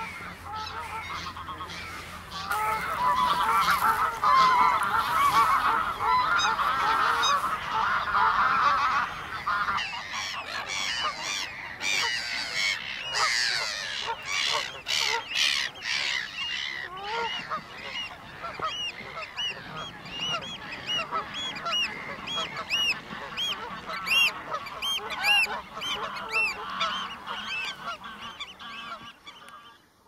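Mixed waterbird colony calling: a dense, loud clamour of honking calls for several seconds, then a long run of short, repeated piping calls like the 'kluut' calls of pied avocets.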